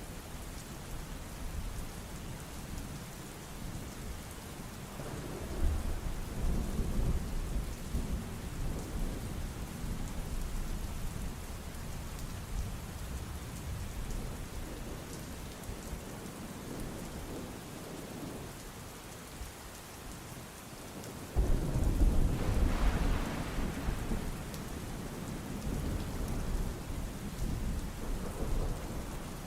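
Steady rain with rolling thunder. A low rumble swells about five seconds in, and a louder thunderclap breaks suddenly about three-quarters of the way through, then rumbles on for several seconds.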